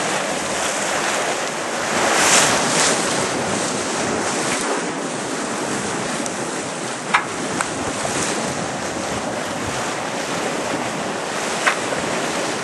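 Wind buffeting the microphone over the rush of sea water along the hull of a sailboat under way, a steady noise with a few sharp clicks about halfway through and again near the end.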